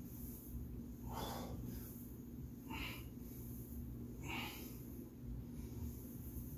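Forceful breaths from a man doing barbell back squats: three short, sharp breaths about a second and a half apart, over a steady low hum.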